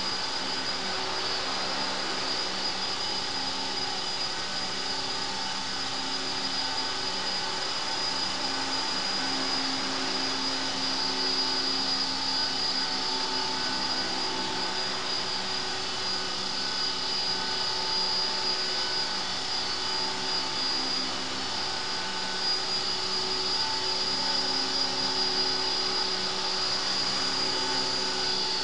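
CopterX 450 Pro electric RC helicopter in flight: a steady high-pitched whine from the motor and gears over the hum of the spinning rotors, its lower tones wavering slightly as it manoeuvres.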